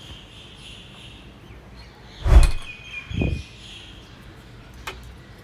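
Two dull thumps about a second apart, a little past halfway: a ceramic salt jar set down on a stone countertop. A faint high chirping lies underneath.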